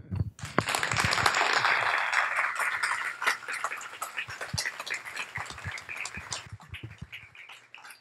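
Audience applauding at the end of a talk: full applause at first, then thinning out to scattered claps and dying away over the last couple of seconds.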